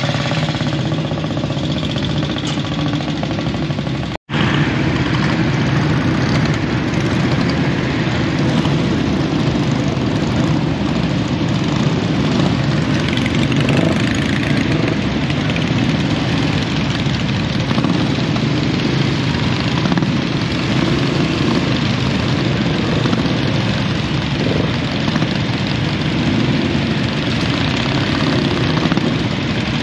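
Engines of a crowd of vintage British single-cylinder and twin motorcycles, mostly AJS and Matchless, running together: idling, with some blipping and pulling away. The sound is steady and cuts out for an instant about four seconds in.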